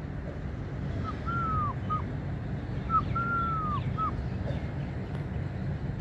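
A bird calling twice, about two seconds apart. Each call is three clear whistled notes: a short one, a longer one that slides down, then another short one. A steady low rumble runs underneath.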